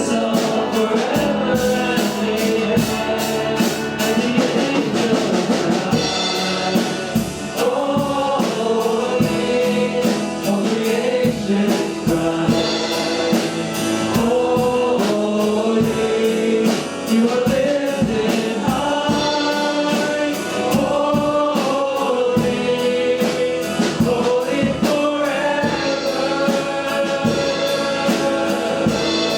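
A worship band and congregation singing a contemporary worship song together, with voices over a steady drum beat.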